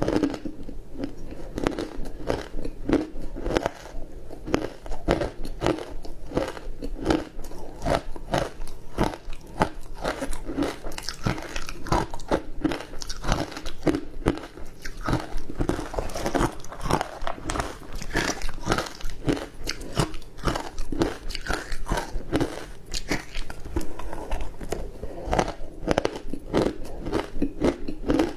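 Ice dusted with matcha powder being bitten and chewed close to the microphone: a continuous run of crisp cracks and crunches, several a second, without a pause.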